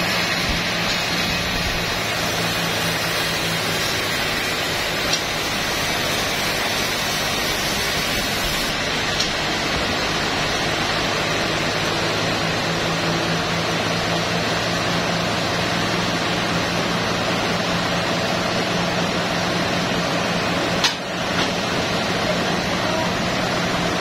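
Sawmill band saw running while a teak log on the carriage is fed through it: a steady, even mechanical rush with a constant low hum. A single sharp knock about 21 seconds in.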